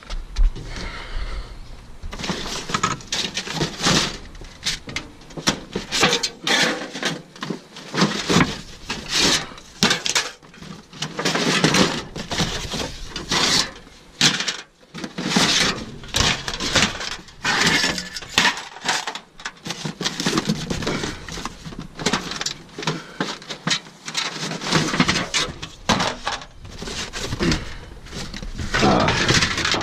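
Rummaging through debris in a steel dumpster: thin vented soffit panels and other scrap clatter and rattle, and cardboard scrapes, in an irregular run of knocks and bangs.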